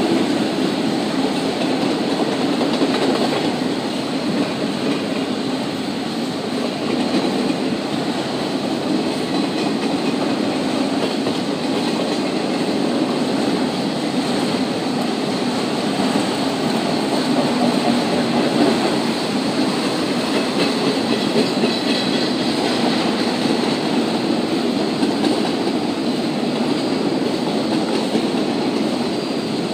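Freight train of autorack cars rolling steadily past, a continuous rumble of steel wheels on the rails.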